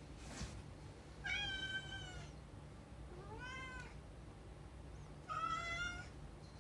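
Domestic cat meowing three times, each meow drawn out for most of a second; the middle one rises and then falls in pitch.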